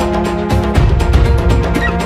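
Background soundtrack music with a steady beat and held notes.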